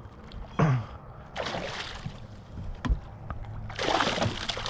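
Water splashing as a hooked smallmouth bass thrashes at the surface beside the boat: a brief splash about a second and a half in, then a louder, longer one near the end. A short low sound falling in pitch comes about half a second in.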